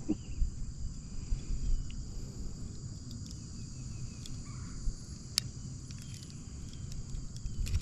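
Steady high-pitched drone of insects, with low handling rumble and a few short clicks, the sharpest about five seconds in, while pliers work a hook out of a fish's mouth.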